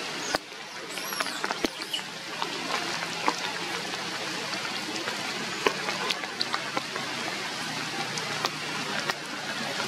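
Steady rain falling on forest foliage: a constant hiss with scattered sharp drips and ticks, and a couple of short high chirps about a second in.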